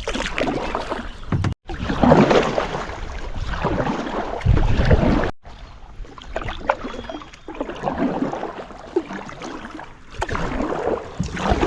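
Kayak paddle strokes pulling through calm lake water: a swish of water every couple of seconds as the blades dip and pull.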